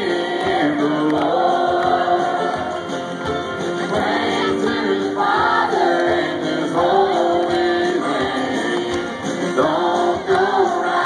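A live country band playing, with acoustic guitar and held sung vocal lines, heard from the crowd through the concert's sound system.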